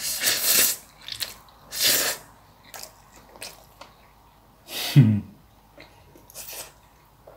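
A person eating a mouthful of soft rice and greens close to the microphone: chewing clicks and several loud breathy mouth-and-nose bursts, one near the start, one about two seconds in and one about five seconds in, where a short low hummed 'mm' falls in pitch.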